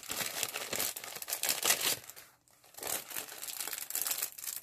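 Plastic packaging bag crinkling and rustling as it is handled and opened to take out a set of metal dies, with a brief lull a little past two seconds in.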